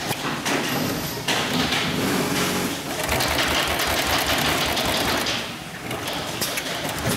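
Hightex double-needle heavy-duty upholstery sewing machine, with its large barrel shuttles, running and stitching thick fabric with heavy braided thread: a fast, even clatter of needle strokes over the motor's steady hum. It eases off briefly a little past halfway, then runs on.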